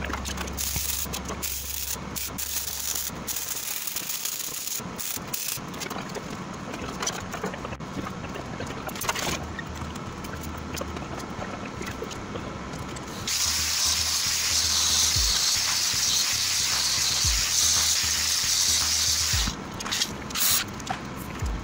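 Angle grinder grinding steel: a loud, steady hiss lasting about six seconds in the second half, then a few short bursts near the end.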